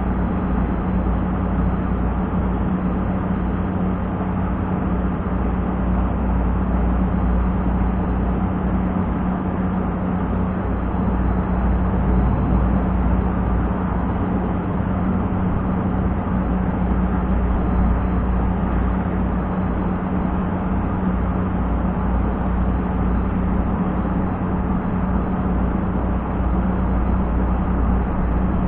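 Wind buffeting an action camera's microphone: a steady, loud, flickering rumble, with a steady low hum running underneath.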